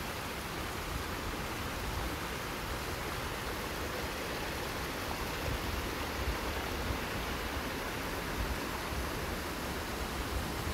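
Wind rushing over a phone's microphone on an open chairlift: a steady hiss with an uneven low rumble underneath.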